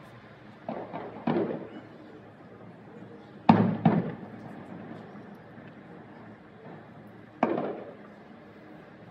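Aerial fireworks shells bursting in the sky: five sharp booms, each trailing off in a short rumble. The loudest are a quick pair about halfway through.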